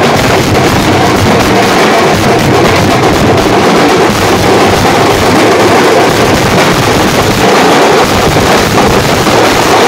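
Dhol-tasha drumming: large barrel dhols beaten with sticks, with a tasha rattling fast over them, in a dense, unbroken rhythm. It is loud enough to overload the microphone and sounds distorted.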